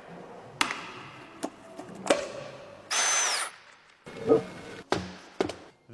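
Workshop handling noises: a few sharp clicks and knocks, and a short half-second whirring burst with a high whine about three seconds in.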